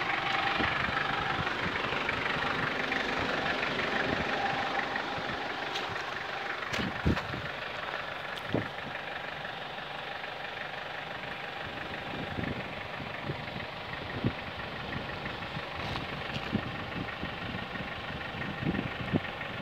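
Toyota Land Cruiser LJ73's four-cylinder diesel engine idling steadily, with scattered light clicks and thumps over it.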